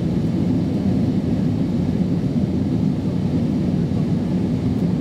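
Cabin noise of an Airbus A320 climbing after take-off: a steady low roar of jet engines and airflow heard through the fuselage.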